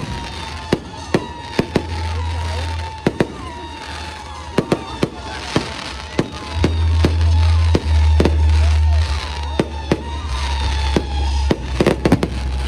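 Fireworks going off in a rapid, irregular series of sharp bangs and crackles, with a heavier low rumble for a few seconds past the middle.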